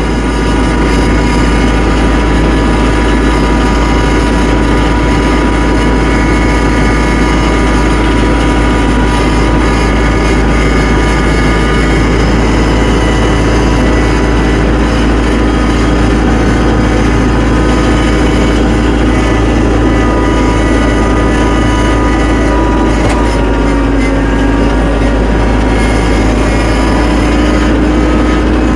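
Tractor engine running steadily under load, its pitch dipping slightly about two-thirds of the way through and then climbing again.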